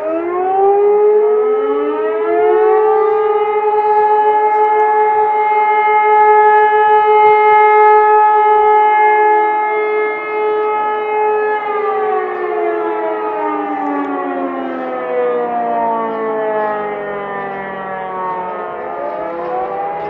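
Civil defence sirens sounding a test. They wind up to a steady wailing tone for about ten seconds, then wind down with several pitches sliding past one another, and near the end they start winding up again.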